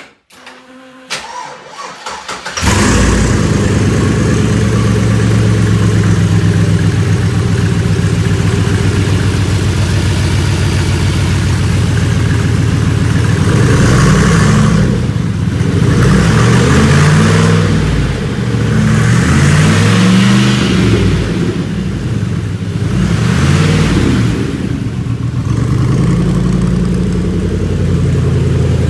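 Restomod C3 Corvette's V8 cranked by the starter, catching about two and a half seconds in and settling into a loud, lumpy idle through its side pipes. In the second half it is blipped up in revs several times, each rev rising and falling back to idle.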